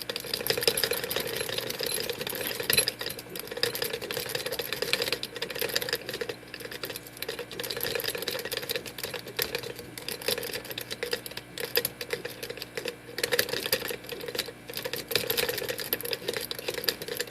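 Worm rake scrubbing in and out of the keyway of a Schlage SC1 five-pin deadbolt: a fast, continuous chatter of clicks as the rake's teeth knock over the pin stacks.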